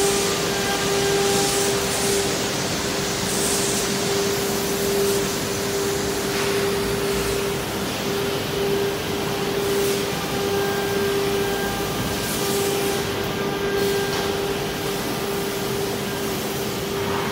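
Steady machine noise from a CNC nesting router line with its loading and unloading tables running: a constant humming tone over a broad hiss. A few short hisses rise above it early on and around the middle.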